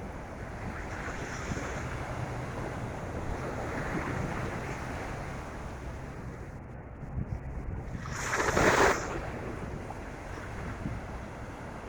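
Atlantic Ocean surf washing onto a sandy beach, with wind buffeting the microphone as a steady low rumble. One louder crash of a breaking wave about eight seconds in.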